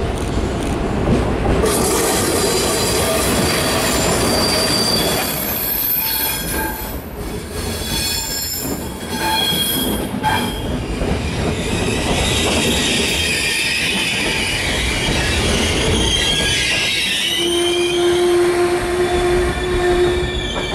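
An FS E656 electric locomotive and its train of coaches roll slowly past, with a steady rumble of wheels on rail and wheels squealing in several high-pitched tones. There are a few clanks partway through, and a lower steady tone for the last few seconds.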